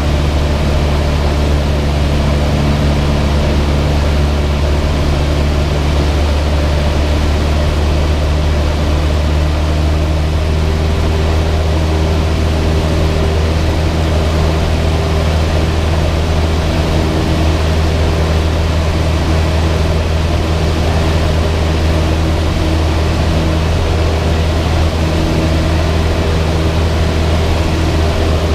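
Cessna 172's piston engine and propeller droning steadily in flight: a loud, even low hum with a haze of noise above it. The tone shifts slightly about ten seconds in.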